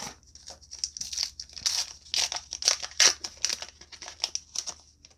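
Foil trading-card booster pack wrapper crinkling and tearing as it is ripped open by hand: a rapid run of sharp crackles that dies away just before the end.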